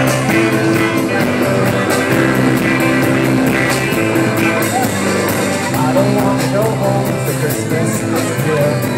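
Live rock band playing through a PA, with electric guitar, bass and drums keeping a steady beat. A voice sings over it from about halfway through.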